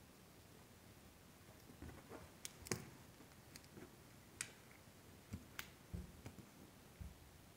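Hands handling a cotton hoodie at its collar snap buttons: a handful of quiet, sharp clicks, the sharpest a little under three seconds in, with soft fabric thumps and rustles in between.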